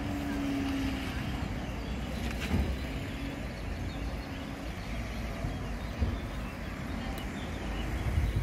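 Outdoor street ambience with road traffic, a car engine faintly heard at the start, over a low rumble on the microphone with a few brief knocks.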